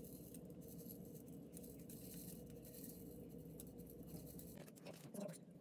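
Faint ticking patter of sprinkles shaken from a small plastic bottle onto a frosted cake, over a low steady room hum.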